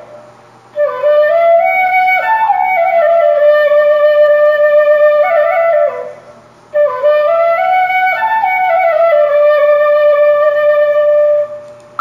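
Background music: a single melody line in two long phrases of about five seconds each, the first starting about a second in and the second about seven seconds in, each after a short pause.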